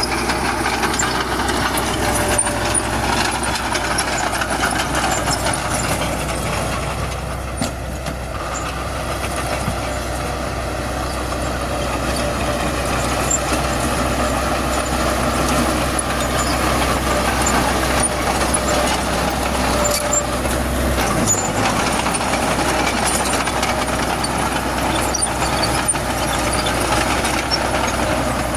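Heavy diesel earthmoving machinery at work: a crawler bulldozer and dump trucks running steadily under load. The low engine note changes about three quarters of the way through.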